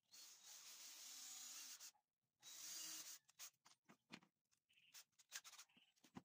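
Cordless drill driving screws into palochina pine, faint: a steady run of about two seconds, a brief pause, then a shorter run. Scattered light clicks and knocks follow.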